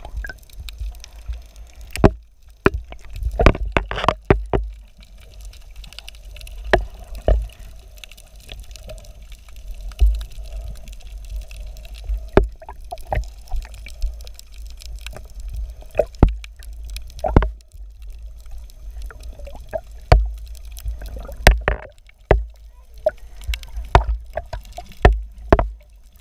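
Sea water sloshing and gurgling around a waterproof action camera at the surface, with irregular sharp knocks every second or two and a steady low rumble.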